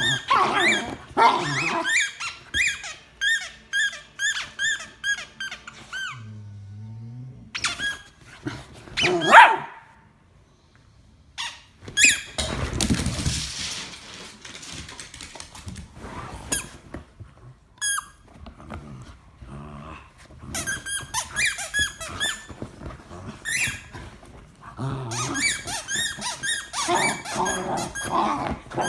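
Puggle making repeated short, high-pitched squeaks in quick runs of about two to three a second, broken by pauses, with one much louder sound about nine seconds in.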